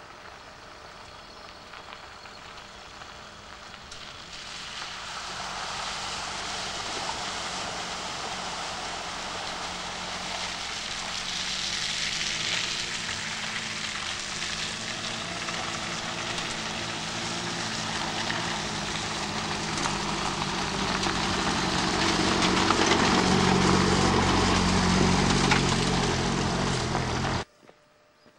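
Suzuki 4x4 engine running as the vehicle climbs a dirt track towards the listener, growing steadily louder, with a noisy rush over the top of it. It stops abruptly near the end.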